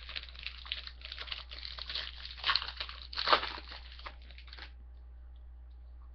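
A plastic trading-card pack wrapper being torn open and crinkled, with dense crackling that stops about four and a half seconds in.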